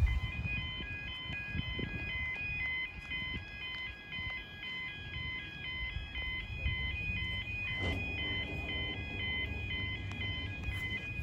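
Level crossing audible warning alarm (yodalarm) sounding: a warbling two-tone alarm that switches steadily back and forth between two high pitches, repeating without a break, over low outdoor rumble.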